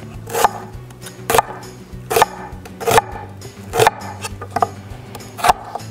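Knife rough-chopping a yellow onion on a cutting board: seven sharp, evenly paced strokes, about one every 0.8 seconds, over background music.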